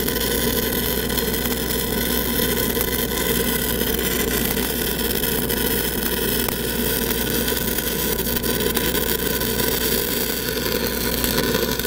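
6010 stick electrode arc burning a downhill root pass on pipe: a steady frying crackle over the steady drone of an engine-driven welding machine.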